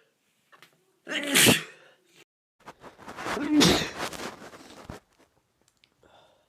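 A man sneezing loudly twice; his attempts to stifle the sneezes fail. The first is short and sharp, and the second, about two seconds later, is longer.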